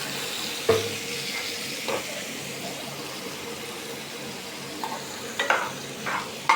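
Meat and onions sizzling as they fry in a karahi, stirred with a metal spoon that knocks against the pan with a short ring about a second in, then several more clinks near the end.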